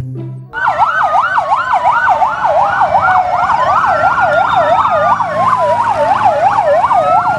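Fire engine sirens: a fast yelp, about three rises and falls a second, over a slower wail that rises and falls, starting about half a second in.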